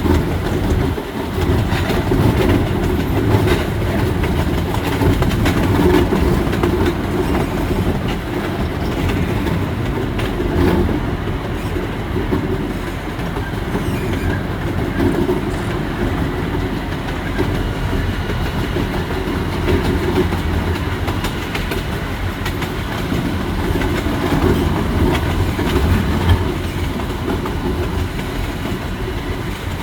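Miniature amusement-park train running along its track, heard from on board near the front: a steady rumble of wheels on rails with scattered clicks.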